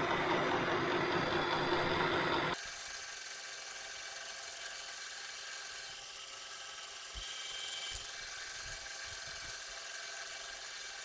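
Takisawa 14x40 metal lathe running, its spindle turning and its gear train, which includes a 3D-printed change gear, driving the lead screw for threading. The steady machine sound drops abruptly about two and a half seconds in to a quieter, steady hum.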